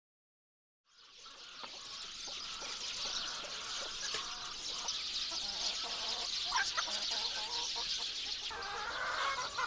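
Chickens clucking, with a few fuller, drawn-out calls near the end, over a steady high-pitched background hiss. The sound fades in about a second in.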